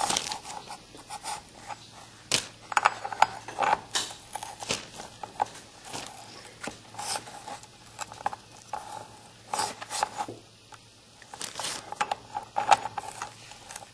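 Irregular metallic clicks and scrapes of a wrench turning the blade nut loose on a gasoline lawn edger's blade shaft.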